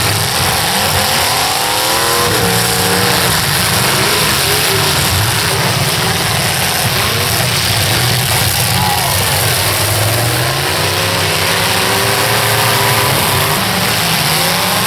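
Several demolition derby cars revving their engines at once, a loud continuous mix of engine notes rising and falling over one another.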